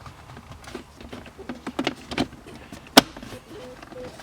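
Plastic center-console trim around the shifter being handled and pressed back into place: light clicks and rubbing, with one sharp snap about three seconds in.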